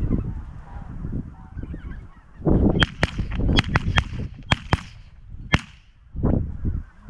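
Geese honking, with wind rumbling on the microphone. About two and a half seconds in, a rapid volley of roughly nine shotgun shots comes over about three seconds.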